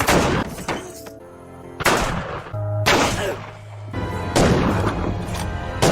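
Several gunshots from a western film soundtrack, sharp reports about a second apart, each with a ringing tail, over dramatic background music.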